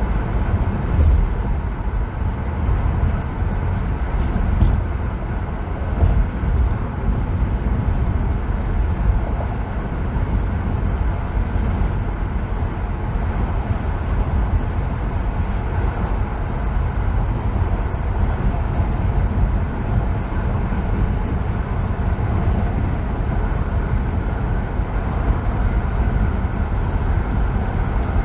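A car driving at freeway speed: a steady, low rumble of tyre, road and engine noise that stays even throughout.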